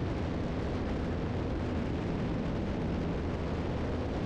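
Twin Continental turbocharged six-cylinder engines and propellers of a 1981 Piper Seneca III droning steadily in cruise descent, heard from inside the cabin.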